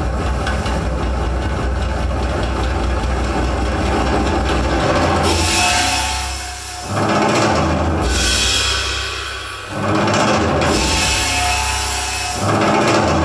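Loud, noisy music with percussion. From about five seconds in it rises and falls in three swells of hissing noise, each a couple of seconds long.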